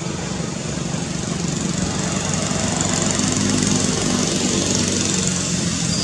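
A motor engine running with a steady hum, getting a little louder toward the middle.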